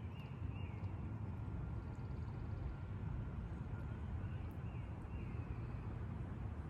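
Wind buffeting the microphone, a steady low rumble, with a few faint high bird chirps about half a second in and again a few seconds later.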